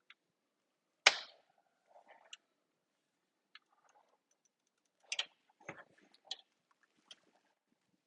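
Sharp clicks and knocks of hard plastic blaster parts and tools being handled during disassembly: one loud knock about a second in, then a cluster of smaller clicks about five to six and a half seconds in.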